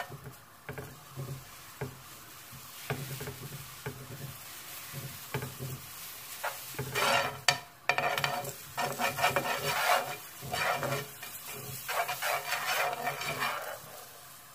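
Butter melting and sizzling in a hot pan on a gas stove while it is stirred and spread around with a wooden spoon. There are light scraping taps at first, and the sizzle grows louder about halfway through as the butter foams.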